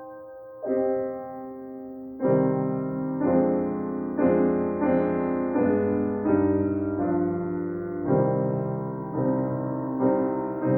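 Background piano music: a soft opening note, then slow, gentle chords struck about once a second.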